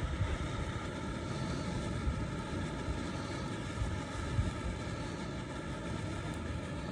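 Homemade aluminum, potassium nitrate and sulfur fountain firework burning with a steady rushing hiss, with low wind buffeting on the microphone.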